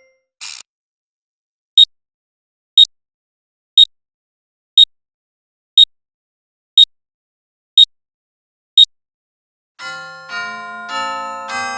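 Clock ticking once a second, eight sharp, even ticks, after a brief hiss-like burst. About two seconds before the end a chiming clock melody begins: a run of ringing bell-like notes, each dying away as the next strikes.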